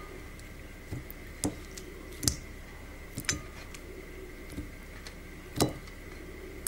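Raw chicken drumsticks being put one by one into a glass mixing bowl: about six soft thuds and light knocks against the glass, irregularly spaced, the loudest near the end.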